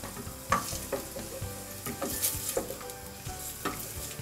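Chopped onion sizzling in olive oil in a pot, with a spoon stirring and knocking against the pot about five times.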